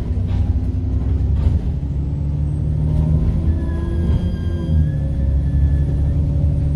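Bus engine running under a steady low drone, with a high-pitched turbocharger whine that rises about midway and then falls away near the end.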